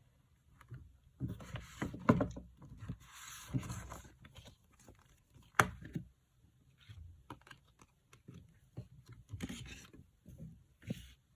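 Hands handling album packaging: card and paper rubbing and scraping, with scattered light taps and one sharp click about five and a half seconds in.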